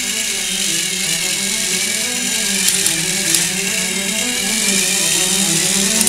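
Small electric motors and plastic gearing of two battery-powered Thomas TrackMaster toy engines whirring steadily as they push against each other under load, with background music mixed in.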